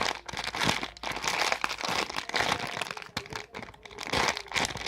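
Plastic wrapping crinkling and rustling in irregular handfuls as squishy toys are handled.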